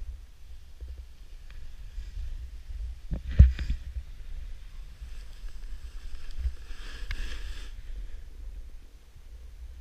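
Wind buffeting the microphone of a rider-worn camera as a snowboard glides over groomed snow, with a sudden thump about three and a half seconds in and a short hiss of the board's edge scraping the snow about seven seconds in.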